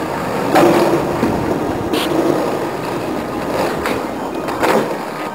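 Skateboard wheels rolling over concrete, a steady rumble, with a few sharp clacks of the board about half a second in, at two seconds, and near the end.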